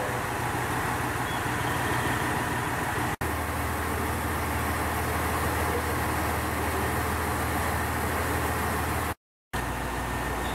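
KiHa 121 diesel railcar's engine idling with a steady low hum. The sound jumps at an edit about three seconds in and drops out briefly about nine seconds in.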